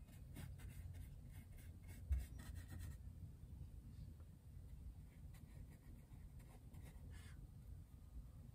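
Faint scratchy strokes of a fine paintbrush on a canvas panel, several in the first three seconds and another near the end, with a low thump about two seconds in.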